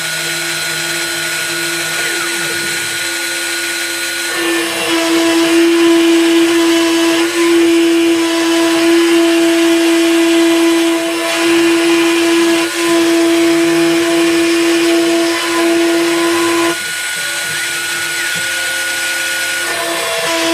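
Spindle of a GoCNC Hobby A3 Basic desktop CNC router running with a steady whine. It gets louder about four seconds in, drops back about three-quarters of the way through, and rises again near the end.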